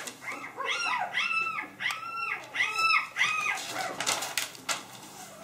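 Young Drentsche Patrijshond puppy crying in a run of high-pitched squeals, each rising and falling, about two a second. Near the end the cries stop and paper rustles briefly.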